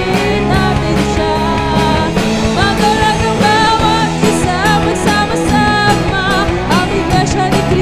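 Rock band playing live: a woman singing lead over two electric guitars, an electric bass and a drum kit, with a steady drum-and-cymbal beat.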